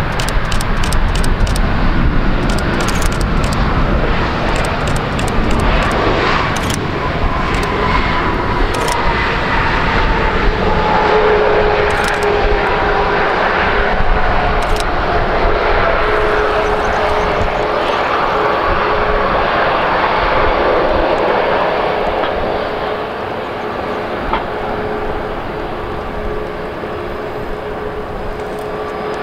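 Airbus A321neo jet engines on the landing rollout, with a loud rumble early on and a whine that falls slowly in pitch as the engines wind down and the airliner slows. A steady hum holds after the first half as the aircraft rolls away.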